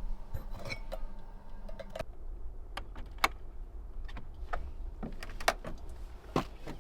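Scattered light clinks and knocks of camp cookware and utensils being handled; a steady hum underneath stops about two seconds in.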